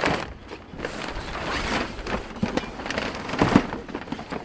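Stiff new sailcloth of a genoa crackling and rustling as it is handled and pulled about.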